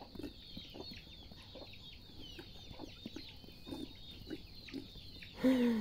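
Chickens clucking faintly in the background, with many quick, falling chirps throughout. A louder pitched call begins near the end.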